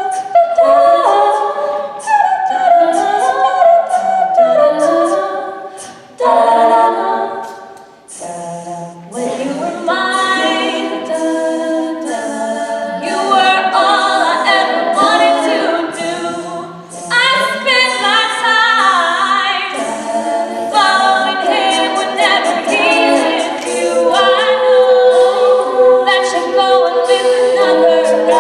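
A cappella vocal group singing in several harmony parts, with no instruments. The sound thins out and drops in loudness about six to eight seconds in, then comes back fuller.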